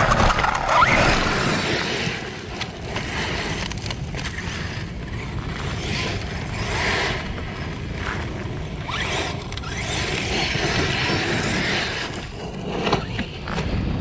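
Losi DBXL 1/5-scale brushless RC buggy driving, heard from on board: a rough, scraping rush of tyres and drivetrain that swells and fades with the car's speed, with brief rising whines from the brushless motor.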